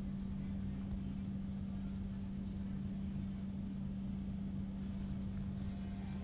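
Steady low mechanical hum: one constant low tone over a low rumble, unchanging in level.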